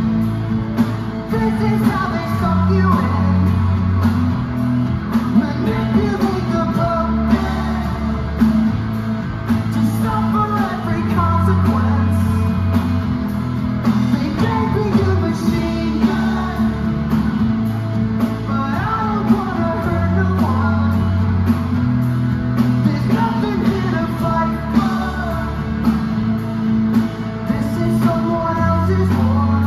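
Live rock band playing loud through a PA: distorted electric guitars, bass guitar and a drum kit keeping a steady beat, with a lead vocal sung over them.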